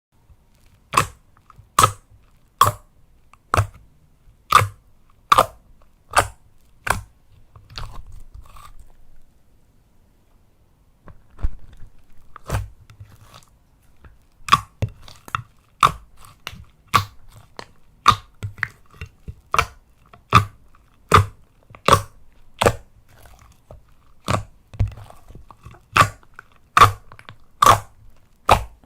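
Slime being pressed and squeezed, giving off a regular string of sharp crackling pops a little under a second apart, with a pause of a few seconds about a third of the way in.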